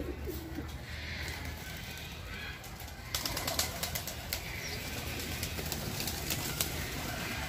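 A dove cooing briefly at the start over a steady low background rumble, then from about three seconds in a run of sharp, irregular clicks and crackles.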